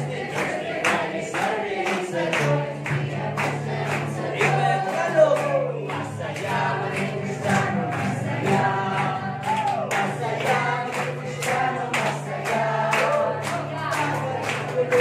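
A crowd singing a song together over amplified music with a sustained low bass line. Regular sharp strikes about twice a second keep the beat, hands clapping along.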